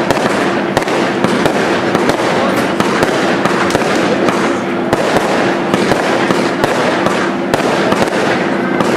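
A firework cake firing shot after shot, with sharp reports about twice a second as the stars launch and burst.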